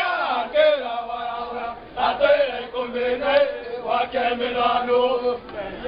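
A group of dancers' voices chanting a Kimeru traditional song together, in phrases with brief breaks between them.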